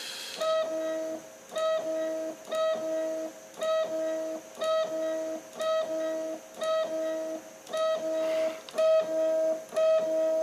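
3D printer stepper motors whining in a regular repeating pattern, about once a second: a higher tone and a lower one alternate as the axes move.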